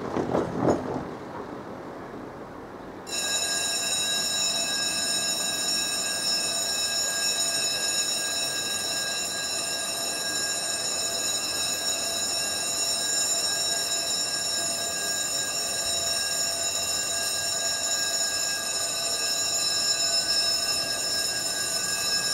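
A car passes in the first second. About three seconds in, the level crossing's electronic warning bell starts and rings steadily, the signal that a train is approaching and the barriers are about to close.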